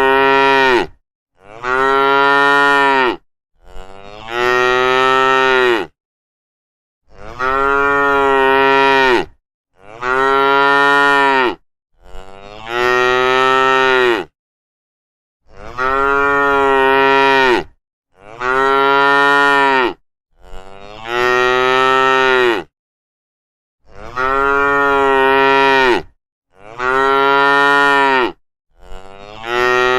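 Cattle mooing over and over: long, drawn-out moos of about two seconds each, roughly one every two to three seconds, with complete silence between them.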